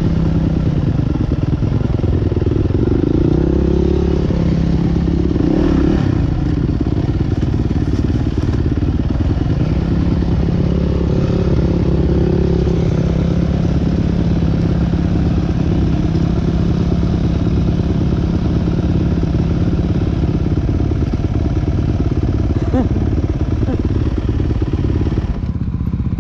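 Motocross motorcycle engines running and revving, the pitch rising and falling at times and holding steady in the middle stretch.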